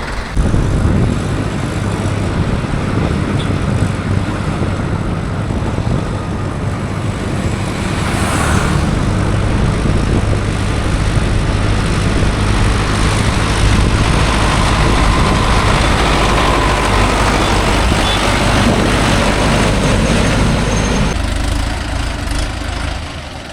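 Mahindra Yuvo Tech Plus 585 tractor's diesel engine running steadily while the tractor travels, with a brief hiss about eight seconds in. The engine note drops away near the end.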